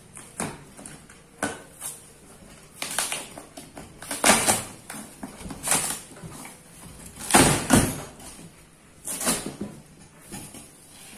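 Cardboard bicycle box being torn open by hand at the top: irregular scraping and ripping of cardboard in about eight separate bursts, loudest about four seconds in and again past the middle.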